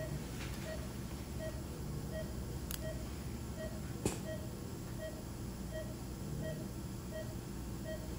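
Patient monitor in the operating room beeping with the heartbeat: a short beep about every 0.6 s, roughly 95 a minute, over a steady low hum. Two sharp clicks, one about two and a half seconds in and one about four seconds in.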